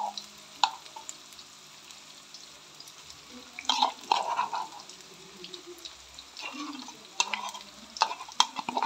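Sliced onions frying in oil in an aluminium wok, sizzling softly, while a silicone spoon knocks and scrapes against the pan. About four seconds in there is a short cluster of louder knocks as garlic and ginger paste goes in, and more taps and scrapes follow near the end.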